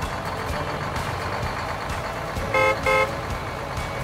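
Truck sound effect: an engine running steadily, with two short horn toots about two and a half seconds in.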